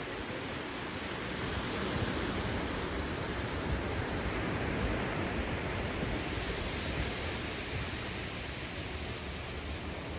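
Small ocean waves breaking and washing up a sandy beach: a steady rushing surf that swells a little a couple of seconds in and eases off toward the end.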